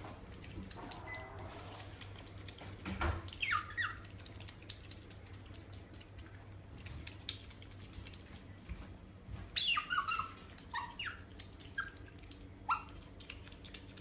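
An animal giving short, high squeaky calls that fall in pitch, in a brief cluster and then a longer series of separate calls later on, over a faint low hum.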